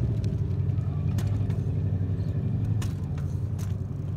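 A car engine running steadily close by, easing off a little near the end, with a few light clicks over it.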